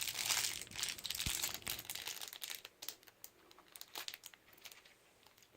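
Foil wrapper of a chocolate surprise egg being peeled off and crinkled by hand. The crinkling is dense for the first couple of seconds, then thins to scattered crackles.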